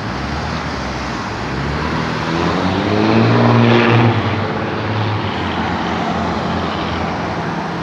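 Road traffic passing through an intersection, a steady rush of tyres and engines. One vehicle's engine hum swells to its loudest about three to four seconds in, then eases off as it goes by.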